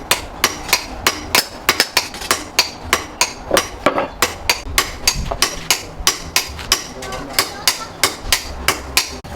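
Hand hammer striking steel on an anvil in quick, regular blows, about three to four a second, each with a short metallic ring: blacksmith hammering out a knife blade made from a chainsaw bar.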